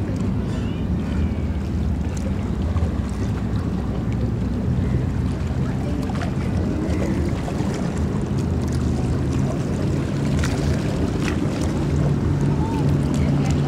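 High-speed passenger ferry's engines running as it approaches: a steady low drone that grows louder near the end, over the wash of water and wind on the microphone.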